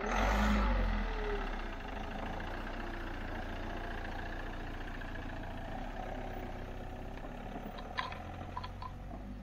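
Camper van engine starting with a loud burst, then idling steadily. A few light clicks come about eight seconds in.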